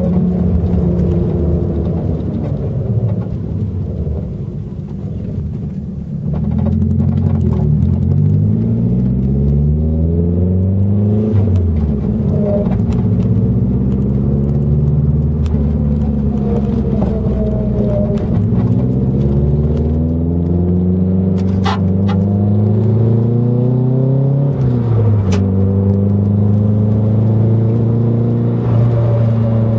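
Nissan 240SX (S14) driving, its engine pitch climbing several times as it accelerates and dropping back between pulls, then holding steady near the end. Off throttle the newly installed viscous limited-slip differential is said to whine or hum, which the owner fears is a bad diff or wheel bearing.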